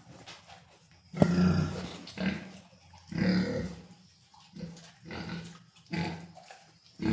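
Pigs grunting, a run of about six short grunts with the loudest about a second in.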